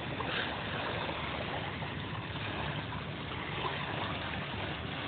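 Small waves lapping on a sandy shore, heard as a steady wash.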